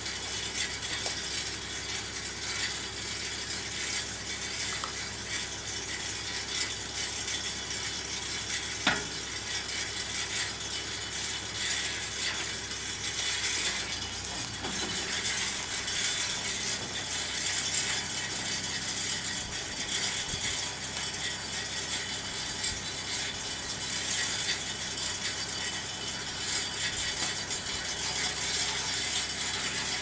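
Toyota Land Cruiser's engine idling with a steady mechanical rattle and hiss as the 4x4 creeps slowly backward, with one sharp click about nine seconds in.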